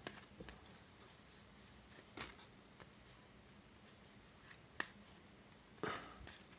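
Faint handling of baseball cards flipped one by one through a stack in the hands: a few light clicks of card edges, and a louder brushing sound near the end as the hand reaches into the pile of cards.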